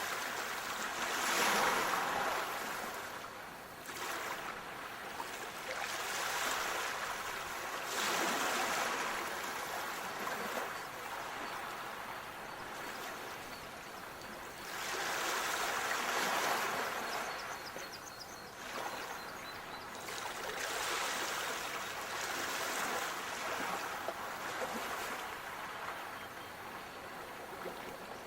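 Sea waves washing onto a shore, each one swelling and falling away every several seconds.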